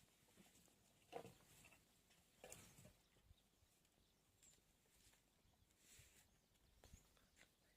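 Near silence, with a few faint, brief noises, the clearest about one second and two and a half seconds in.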